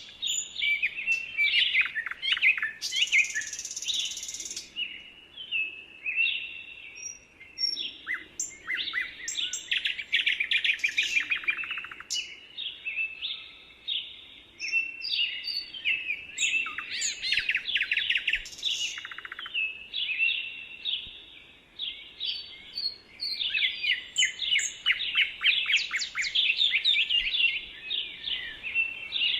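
Songbirds singing in a woodland dawn-chorus style, dense and overlapping, with short chirps, whistled notes and fast trills. A brief high hiss comes in about three seconds in.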